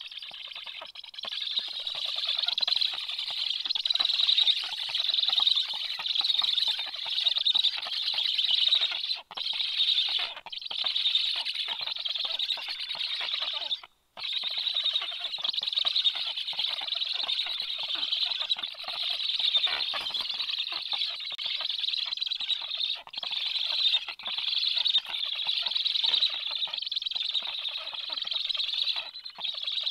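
Black stork chicks begging for food, a continuous high chorus broken by brief pauses about nine, ten and fourteen seconds in.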